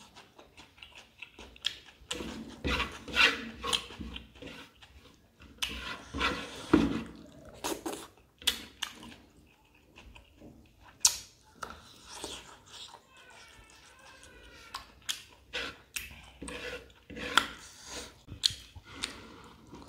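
Close mouth sounds of eating with the fingers: irregular wet chewing, lip smacks and sucking noises, separated by short pauses.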